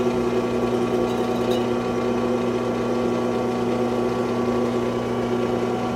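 Metal lathe running steadily with a Stihl MS500i cylinder chucked and spinning, its motor and drive giving a steady hum of several fixed tones; no cutting noise from the boring bar.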